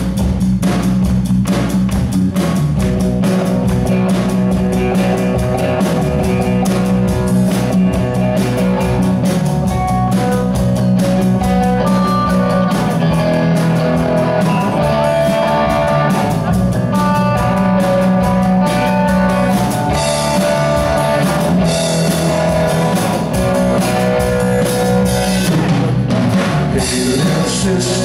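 Live rock band playing loudly: electric guitars and a drum kit with a steady beat.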